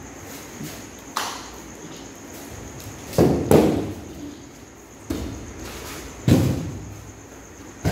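A series of sudden thumps and thuds from a single-stick martial-arts routine on floor mats, about six in all, the loudest a quick double thump about three seconds in.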